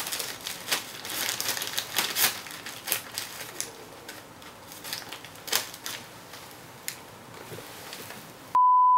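Scissors snipping through a black plastic mailer bag, with the plastic crinkling and crackling in irregular clicks. Near the end a loud, steady, high beep tone cuts in abruptly.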